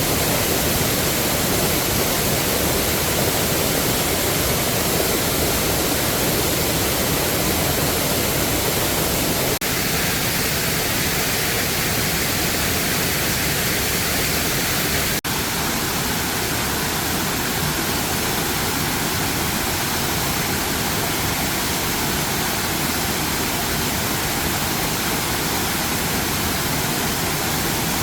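Waterfall rushing steadily, a dense even roar of falling water, with two brief dropouts about ten and fifteen seconds in.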